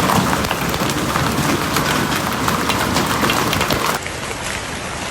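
Hailstones pelting down in a dense, continuous rattle of many small impacts on hard surfaces. About four seconds in the sound changes abruptly and becomes slightly quieter, as another stretch of the storm begins.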